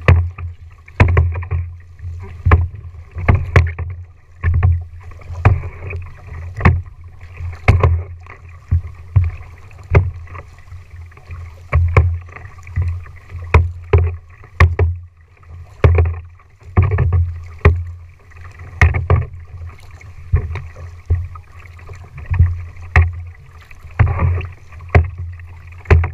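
Kayak paddle strokes, about one a second: each blade entering the water with a splash and a knock carried through the plastic hull, with a low thump at each stroke.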